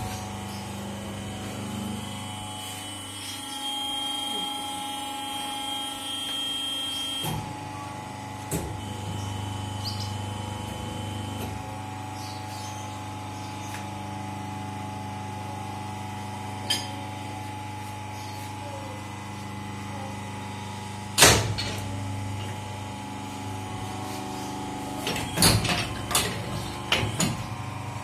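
Automatic four-cavity gallon-cap moulding machine running with a steady motor hum, and the sharp clank of its mechanism once about three-quarters of the way through and several times near the end.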